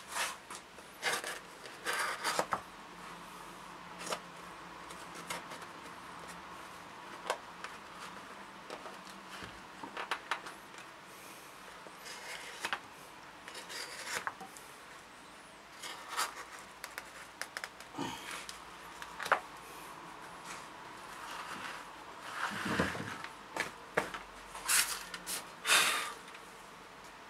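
Hand-made hunting knife slicing through sheets of paper: irregular short, crisp cuts and paper rustles.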